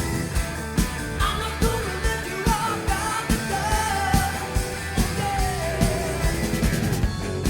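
Rock band studio recording: a steady drum beat under the band, with a lead vocal line from about a second in.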